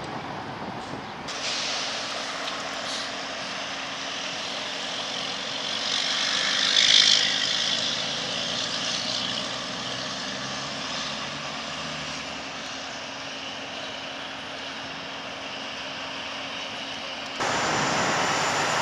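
Heavy diesel trucks running: a steady low engine hum under a continuous rush of traffic, swelling as a truck passes about six to seven seconds in. Near the end the sound changes abruptly to a louder, even rush.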